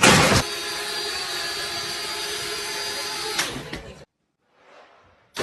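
A small electric motor starting with a loud burst, then running with a steady whir for about three seconds before cutting off.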